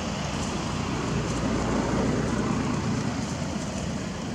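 Steady low rumbling background noise, swelling slightly in the middle, with a few faint high clicks.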